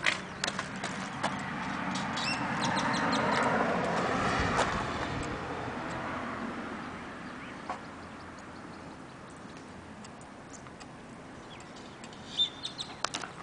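A vehicle passing by, its noise swelling over a few seconds and fading away. A few short bird chirps, and a cluster of clicks and knocks near the end.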